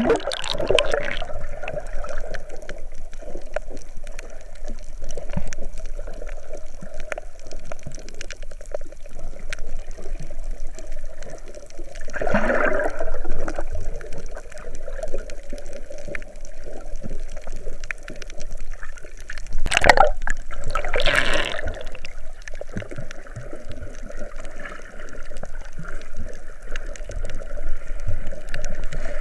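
Sea water sloshing and gurgling close to the microphone, with a few louder splashes, at about 12 seconds, 20 seconds and 21 seconds in.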